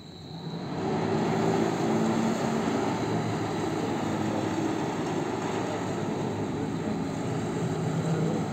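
BAHART passenger catamaran's engines and propellers running as the ship gets under way, a loud steady drone with a low hum, rising within the first second and holding steady.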